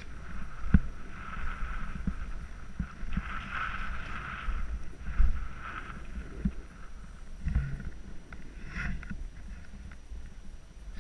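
Snowboard sliding and turning on packed snow: a scraping hiss from the edge that swells and fades with each turn, over a steady low rumble, with a few sharp thumps as the board hits bumps.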